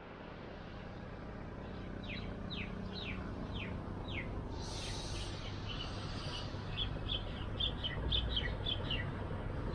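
Small birds calling: a run of five quick falling chirps about two seconds in, then a string of short high notes through the second half, over a steady low background hum.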